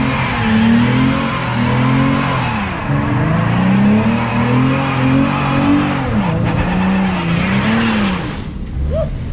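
Muscle car doing a burnout, its engine revving up and falling back again and again while the rear tyres spin and squeal on the pavement. The tyre noise drops away sharply near the end.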